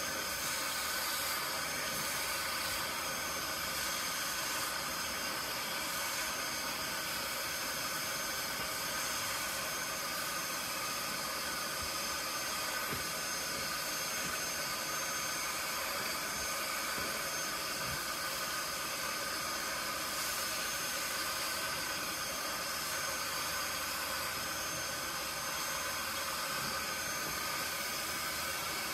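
Portable spot carpet cleaner running steadily, its suction motor giving a constant whirring hiss with several steady high tones and no change in pitch.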